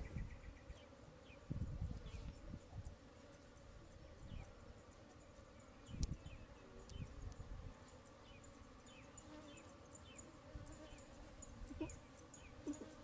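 Faint insect buzzing with a run of short, high chirps repeating throughout, and a few dull low thumps, the sharpest about six seconds in.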